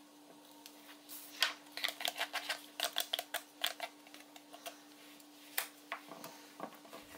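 Wooden chopsticks clicking and scraping against a glass bowl as wheat starch and hot water are mixed into a crumbly dough. A quick run of clicks lasts a few seconds, followed by a few scattered taps. A steady faint hum runs underneath.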